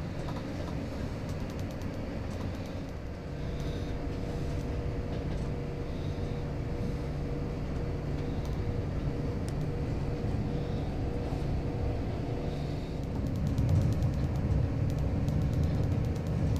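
Passenger train running along the line, a steady rumble with a faint steady tone over it, getting louder about thirteen seconds in.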